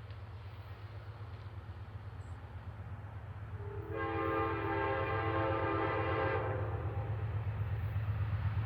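Low rumble of an approaching Amtrak diesel locomotive growing steadily louder. About four seconds in, its multi-note air horn sounds one long chord lasting roughly two and a half seconds.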